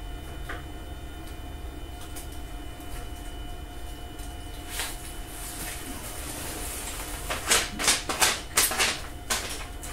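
Masking tape being peeled up off a CNC spoilboard: quiet handling, then a quick run of short ripping tears about seven seconds in, over a steady low hum.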